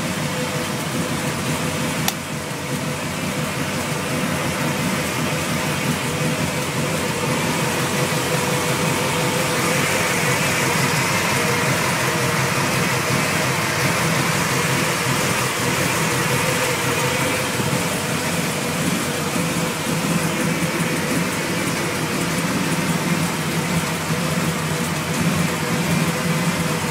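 A 1922 T-bucket hot rod's engine idling steadily, with no revving. There is a single click about two seconds in.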